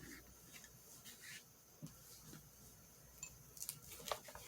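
Faint rustling and light ticks of paper cutouts being handled and pressed down, with a few sharper clicks near the end.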